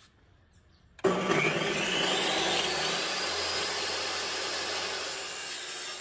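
Einhell table saw switched on about a second in, its whine rising as the blade spins up to speed, then running steadily.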